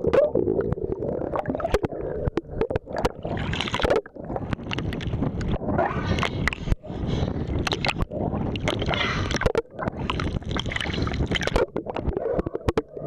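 Choppy water sloshing and gurgling against a camera held right at the surface, with many short splashes and knocks.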